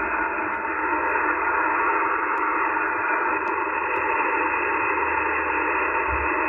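Steady hiss of HF band noise from a Yaesu FT-891 transceiver's receiver in SSB mode, cut off above and below the voice passband: an open frequency with no station answering the call yet.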